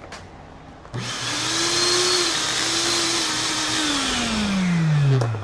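Oster Oliq-610 blender motor switched on about a second in for a test run on its new motor and jar drive couplings, spinning with a steady whine. Near the end its pitch slides down as it winds down, and it cuts out just before the end.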